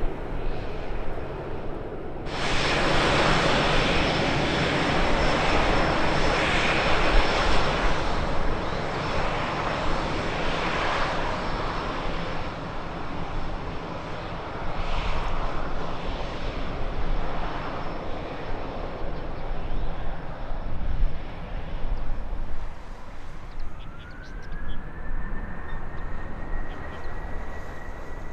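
Airliner engines roaring as an aircraft moves on or near the runway, starting abruptly about two seconds in and slowly fading, then a rising whine that levels off near the end.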